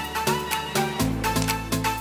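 Background music with a steady beat, pitched melody notes and a held bass line.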